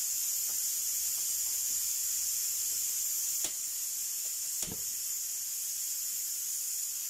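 Steady high-pitched hiss, with two soft knocks about three and a half and four and a half seconds in.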